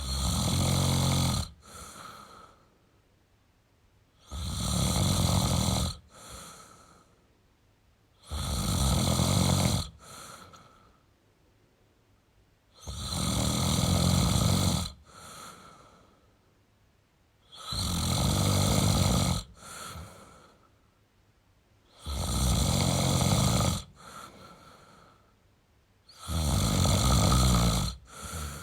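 A man snoring in a slow, regular rhythm: seven loud rasping snores, about one every four seconds, each followed by a shorter, quieter breath.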